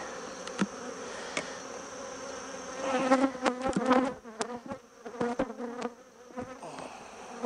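Honeybees buzzing over an open hive: a steady hum that swells louder for a second or so about three seconds in. Sharp clicks and knocks of a metal hive tool against the wooden frames.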